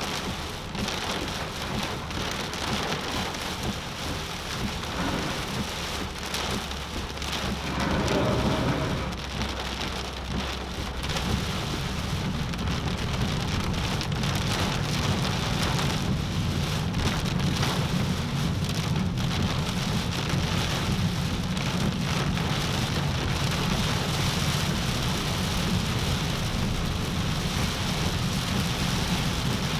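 Heavy tropical-storm rain drumming on a moving car, heard from inside. A low rumble grows stronger about eleven seconds in and holds steady.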